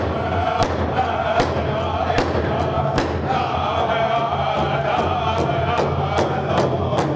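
Intro music: a group of voices chanting over a steady drum beat, about two to three beats a second.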